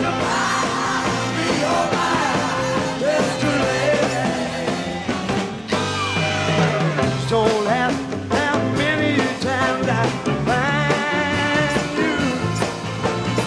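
Rock song recording playing: a band with bass, keyboards and a singer.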